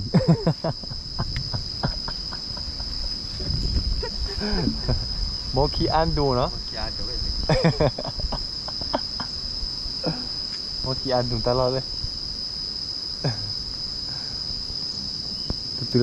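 Steady, high-pitched insect drone, a constant shrill tone, with short snatches of people talking now and then.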